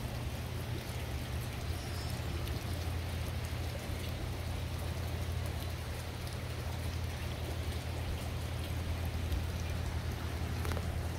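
Outdoor ambience: a steady low rumble under a faint even hiss, with a few faint ticks.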